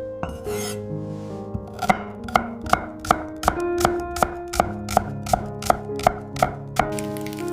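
Knife chopping on a cutting board in a steady rhythm of nearly three strokes a second, starting about two seconds in.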